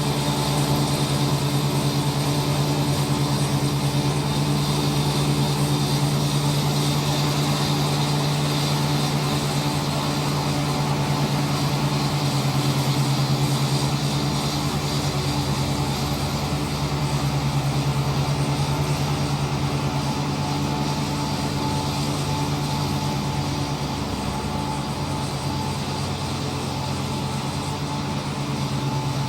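ISEKI 325 rice harvester's engine running steadily under working load with a continuous, even drone, while the machine works through the rice crop.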